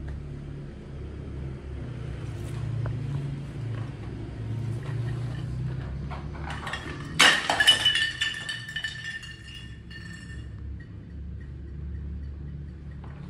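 A hard object strikes with a sharp clink about seven seconds in, followed by a few quick knocks, and rings with a clear tone for about three seconds. A low steady hum runs underneath.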